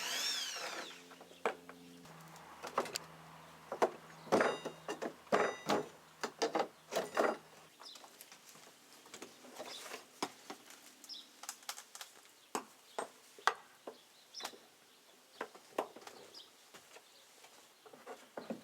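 Irregular wooden knocks and clicks from handling and fitting new deck railing boards, with a steady low hum through the first half and bird chirps.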